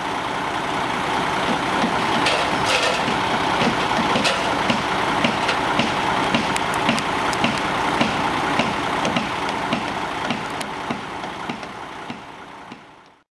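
A large engine, as of a truck or heavy machine, running steadily with a regular low pulse and scattered sharp clicks and knocks, fading out near the end.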